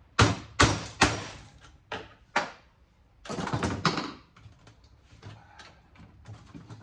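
Hand tools working on the steel case of a cable box: a hammer and chisel strike sharply three times in quick succession, then twice more lightly. About three seconds in comes a second-long scraping crunch as the metal is pried apart, followed by faint small clicks.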